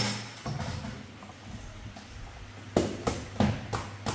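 A loud knock right at the start, then a run of sharp knocks of hard objects, about three a second, in the second half.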